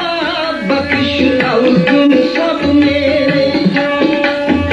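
Background music with tabla drumming under a wavering melody and a steady held note.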